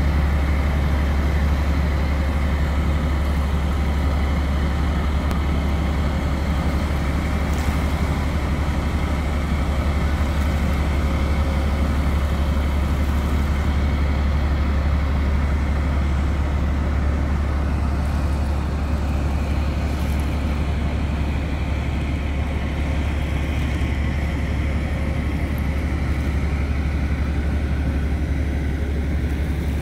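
Steady low rumble of tugboat diesel engines at work, with faint steady tones above it.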